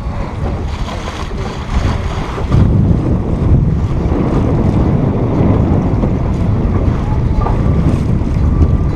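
Wind blowing across the microphone over water splashing along the hull of a small sailboat under sail in choppy water.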